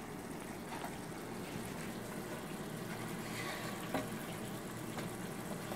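Opah fillets cooking in butter, oil and their own juices in an uncovered frying pan: a steady, soft bubbling sizzle. A few faint clicks of wooden utensils against the pan come about a second in and near the end.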